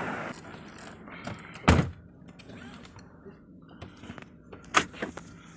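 Two heavy thuds of car doors being shut from inside the cabin, about three seconds apart, with faint clicks and rustling between them.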